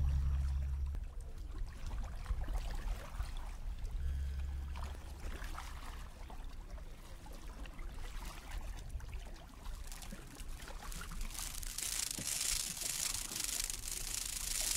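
Water lapping and splashing against a plastic sit-on-top kayak hull, the splashing louder in the last few seconds. A low electronic hum from the kayak's sonification system sounds at the start and again briefly about four seconds in.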